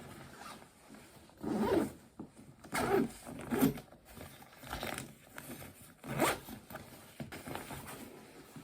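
A zipper being pulled open or shut in several short rasps, about five in all, each lasting around half a second.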